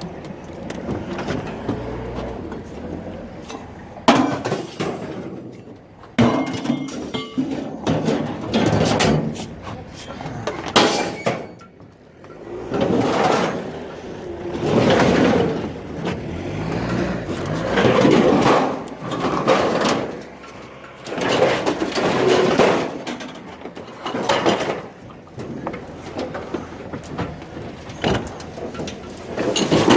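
Pieces of scrap metal thrown down onto a pile one after another, each landing with a clattering crash and some metallic ringing, every second or two.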